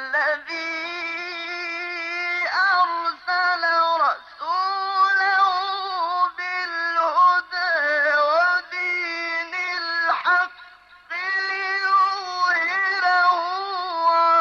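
A man's solo voice in melodic Quran recitation, holding long notes that bend and ornament, with a short pause about ten and a half seconds in.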